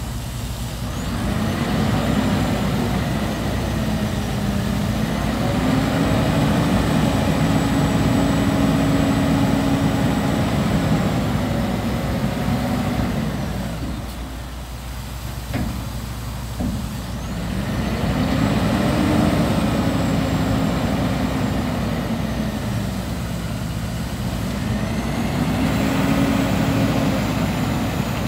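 Scania tipper truck's diesel engine held at raised revs to drive the tipping hydraulics. The engine speed drops away about fourteen seconds in, with a few short clicks, then rises again and swells and eases twice more as the tipper body is lowered.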